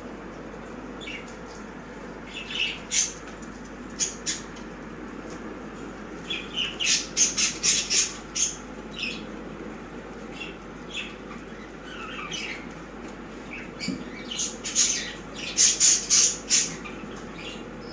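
Pet budgerigars chirping and squawking in quick, short calls, in bunches about three seconds in, around seven to eight seconds, and again around fifteen to sixteen seconds, over a steady low hum.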